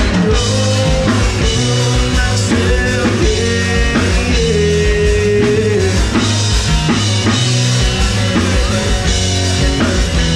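Live rock band playing: electric guitars and drum kit keeping a steady beat, with a melodic lead line over it.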